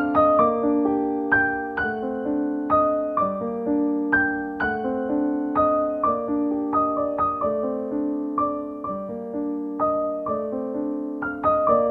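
Background piano music: single struck notes, about two to three a second, over lower notes that ring on beneath them.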